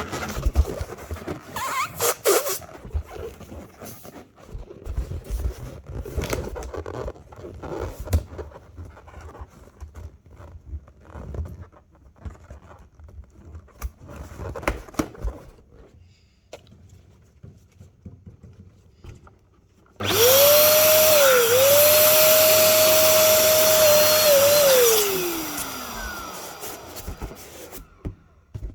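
Rubber balloons being handled, with rustling, squeaks and small knocks. About two-thirds of the way through, an electric balloon inflator switches on and runs loudly and steadily with a held whine for about five seconds. It then winds down with a falling whine as it is switched off.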